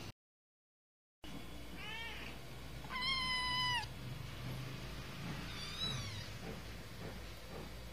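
Seven-week-old kitten meowing three times after a second of dead silence: a short call about two seconds in, a longer, level and loudest meow about a second later, and a short rising-and-falling meow about six seconds in.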